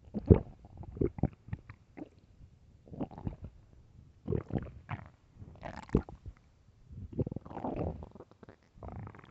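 A hungry human stomach growling loudly: an irregular string of gurgles and short pops, with a longer rolling gurgle near the end. The sound of an empty, starving stomach.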